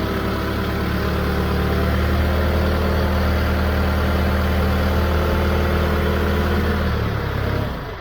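Branson F50 compact tractor's diesel engine running steadily as the tractor pulls away. The engine is shut off just before the end.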